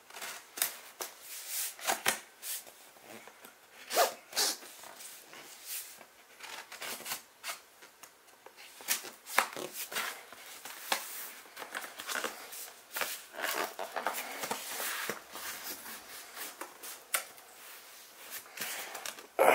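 Scissors slitting and scraping along packing tape on a cardboard box, with the tape being pulled and peeled from the cardboard: irregular scratchy rips and clicks.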